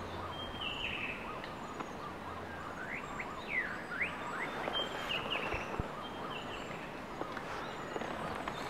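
Forest birds calling over a steady background hiss: a few short whistled notes early on, then a cluster of quick rising and falling calls a few seconds in, with more short notes later.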